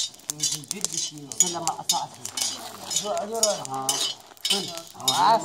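Raw coffee beans being roasted in a long-handled metal roasting pan: rapid clinking and scraping of a metal stirrer against the pan and the beans as they are turned.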